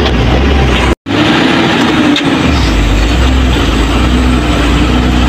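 Truck's diesel engine running steadily with road noise, heard from inside the cab while driving: a loud low drone. The sound cuts out for an instant about a second in.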